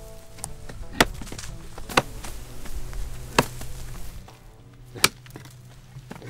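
Sharp chopping blows of short-handled hand hoes cutting into dry grass and hard ground while clearing a field. There are five separate strikes, about one every second to second and a half.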